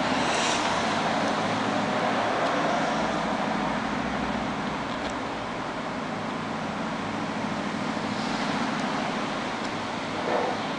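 Steady background noise, a continuous hiss and low rumble with no distinct events, like distant traffic.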